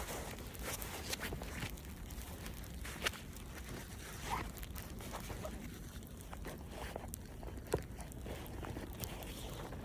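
Footsteps crunching in snow, irregular short crunches and clicks over a steady low rumble.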